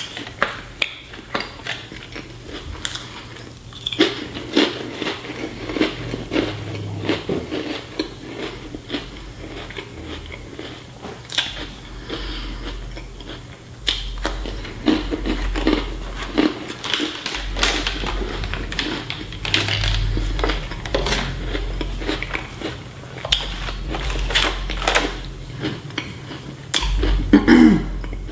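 Close-up biting and chewing of Lunchables crackers and toppings, with many short crunches in quick succession. A low beat of background music runs underneath from about twelve seconds in.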